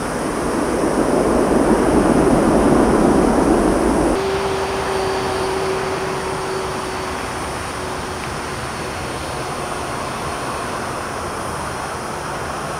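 Boeing 747 freighter's jet engines roaring on its landing run on the runway, the noise cut off suddenly about four seconds in. Then a second Boeing 747-400 freighter's engines running at low power as it rolls along the runway, with a steady hum that fades away.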